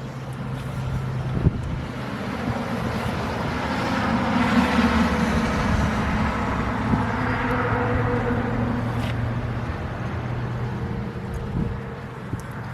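A road vehicle passing by: engine and tyre noise swell to a peak about halfway through and then fade. A sharp click comes about a second and a half in.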